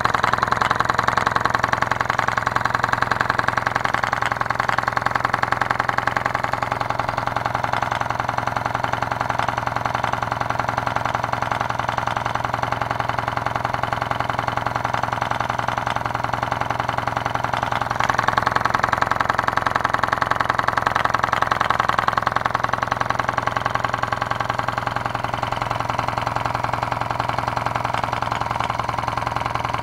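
A homemade drink-can Stirling engine fired by an alcohol burner, running fast and steadily with a rapid, even rattle from its moving parts. It gets a little louder for a few seconds past the middle.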